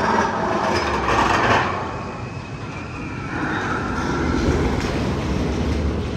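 A train rumbling and rattling along rails. It is loudest in the first second and a half, eases off, then swells again about four seconds in.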